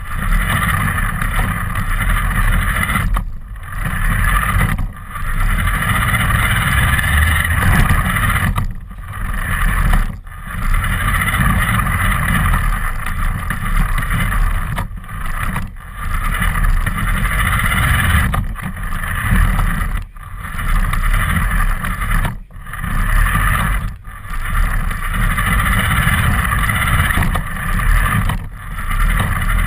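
Radio-controlled car running, its motor and tyre noise loud and steady, dropping out briefly about a dozen times at uneven intervals.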